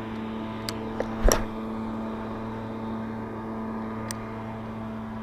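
A steady low mechanical hum, like a motor running, with a few sharp clicks from handling a spinning fishing reel; the loudest click comes just over a second in and another about four seconds in.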